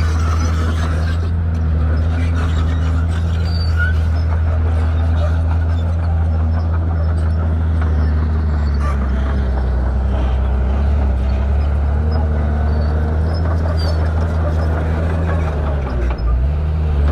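Shantui crawler bulldozer's diesel engine running loud and steady, with a brief dip in its sound about sixteen seconds in.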